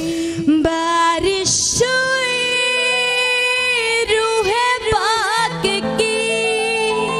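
A woman singing a Hindi Christian worship song (masih geet) over musical backing, holding long wordless notes with a wavering run about five seconds in.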